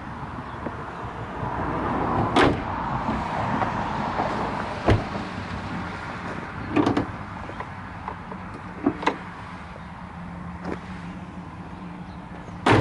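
Ford F-150 steel hood being lowered and handled, with several separate knocks and clunks, then slammed shut with one loud bang at the very end.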